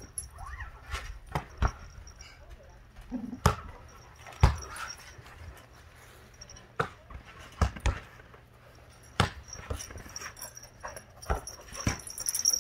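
Labrador puppy playing, with a short whine about half a second in. Scattered sharp knocks and thumps come irregularly, about a dozen of them.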